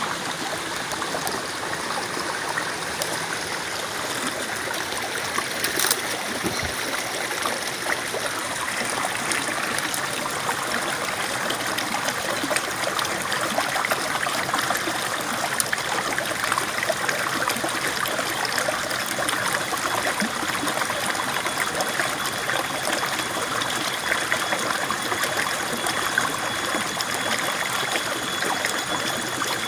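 Stream water running and trickling over rocks, a steady rush. There is a brief knock about six seconds in and another near the end.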